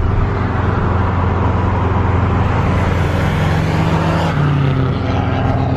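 A car engine running with a steady low drone over a hiss of road and wind noise; the engine note shifts about four seconds in.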